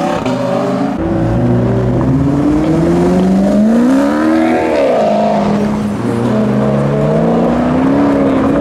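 Sports cars accelerating away one after another, their engine notes climbing and dropping back at each gear change. An Audi R8's V10 pulls away first, then a Maserati GranTurismo's V8 passes with a note that rises and falls about four seconds in.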